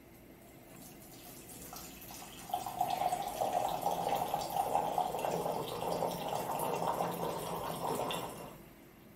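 A thin stream of water poured from a green-clay Yixing teapot's spout into a glass pitcher, splashing as it fills. The pour grows louder about two seconds in and fades out near the end.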